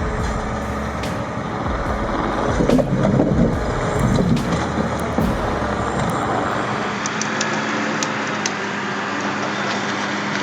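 Heavy truck engine running steadily, growing louder and rougher for a few seconds in the middle; the deepest rumble falls away about six seconds in.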